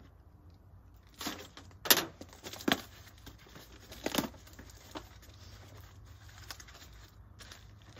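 A small cardboard box being slit open with a knife and its flaps pulled apart: several sharp cardboard scrapes and rips in the first half, the loudest about two seconds in, then quieter rustling.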